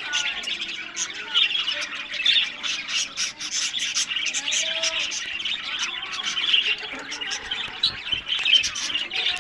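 Budgerigars chattering: a continuous, dense stream of overlapping warbles, chirps and squawks.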